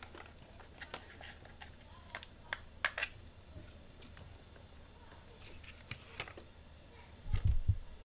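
Light clicks and taps of a small 3D-printed plastic case being handled and its lid pulled off, with a short burst of low bumps near the end.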